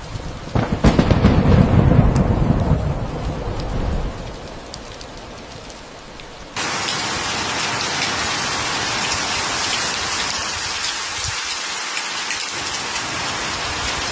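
A loud low rumble of thunder about a second in, fading over the next few seconds above a hiss of rain. About halfway through, heavy rain sets in suddenly and pours steadily.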